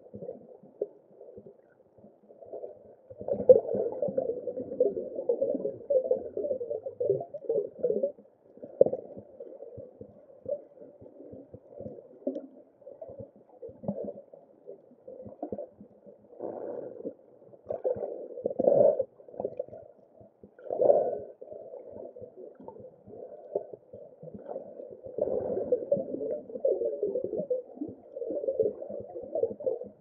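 Muffled underwater sound recorded through a waterproof camera housing: irregular gurgling surges of moving water, with no high frequencies.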